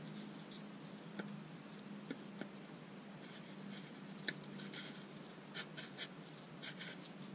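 Faint scratching and clicking as gloved hands turn the cartridge oil filter housing cap onto its threads by hand, a run of short scrapes with a few sharper ones in the second half, over a faint steady low hum.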